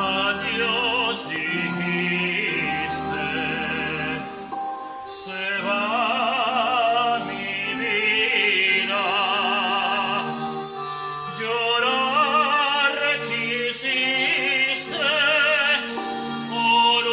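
A man singing in an operatic voice, long held phrases with wide vibrato, over an instrumental accompaniment with a steady bass.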